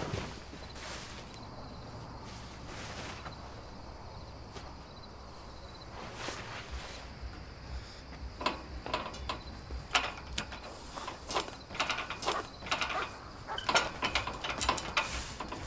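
Metal bar gate rattling and clanking as someone grips it and climbs over it. A few soft scuffs come first, then about halfway through a busy run of sharp metallic knocks and clicks.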